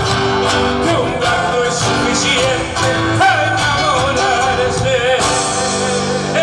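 Live Cuyo folk music: the closing phrases of a gato, with a singing voice over instrumental accompaniment, settling into a held low chord near the end.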